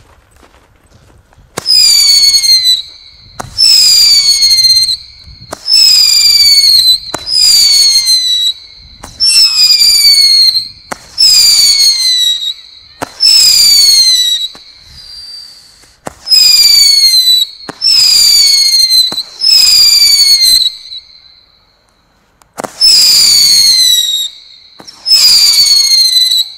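Weco Highriser firework battery firing shot after shot, about a dozen a second or two apart. Each shot launches with a sharp crack and a whistle that falls slightly in pitch over about a second. There is a longer pause about two-thirds of the way through.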